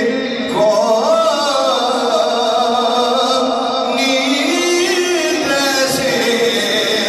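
A man chanting an Urdu naat, a devotional poem in praise of the Prophet, in long drawn-out notes that bend slowly up and down in pitch.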